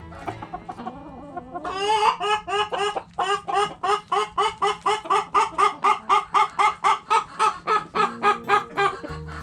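A chicken clucking in a rapid, even run of short calls, about four a second, starting a couple of seconds in and lasting about seven seconds.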